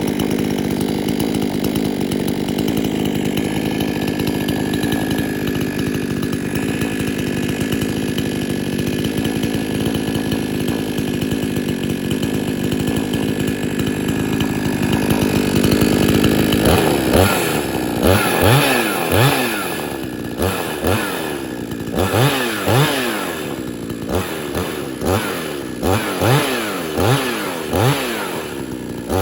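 XtremepowerUS 62100XP two-stroke gas chainsaw idling steadily. About halfway through, the throttle starts being blipped over and over, roughly once a second, each rev rising and falling back.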